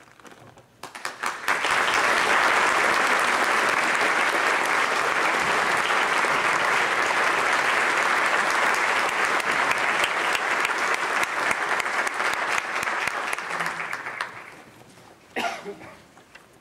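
Audience applauding: a few scattered claps about a second in quickly build into steady applause, which dies away about fourteen seconds in. A short sharp noise follows near the end.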